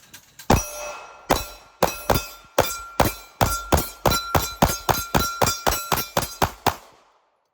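Pistol fire: a rapid string of about twenty shots that speeds up as it goes, with a faint ringing between the shots.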